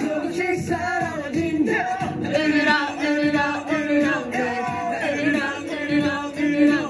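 Male K-pop group vocals, several voices singing a pop song together over a backing track.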